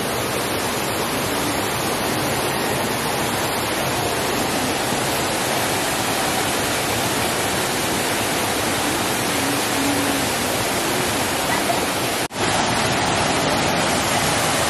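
Waterfall water rushing and splashing: a steady, loud noise, broken by a momentary dropout about twelve seconds in.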